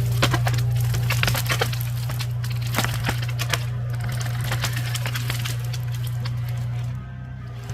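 Wood cracking and snapping in many irregular sharp crackles, like branches breaking, over a steady low engine drone. The drone drops in level about seven seconds in.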